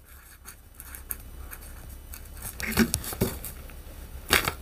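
Felt-tip marker writing on a dry bay leaf: faint scratching strokes with light taps, and a couple of sharper clicks near the end.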